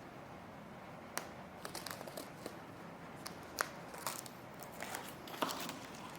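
Scattered small crinkles and sharp clicks of something being handled, over a faint steady room hiss.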